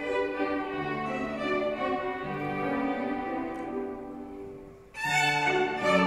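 A youth violin ensemble of about a dozen children with their teacher, playing a piece together in sustained, stepwise notes. The music dies down to a quiet passage about four seconds in, then comes back in louder just after five seconds.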